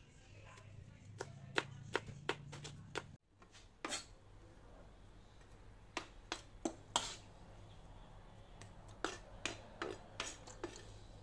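Kitchen knife chopping salted mustard greens on a cutting board: sharp, irregular knocks in short runs of a few strokes each, with a brief break about three seconds in.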